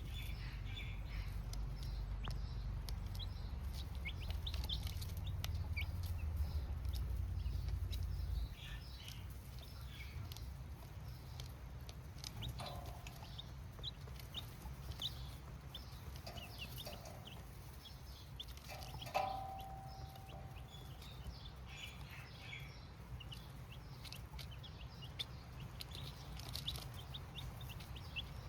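A brood of baby chicks cheeping in many short, high peeps, with a low rumble under the first eight seconds or so that cuts off suddenly.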